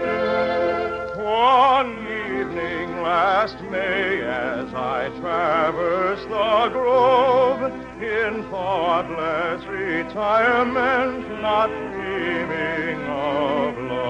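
Operatic soprano singing with a wide vibrato, held high notes and quick rising runs, over an orchestra. It is an old mono radio recording with a dull top end.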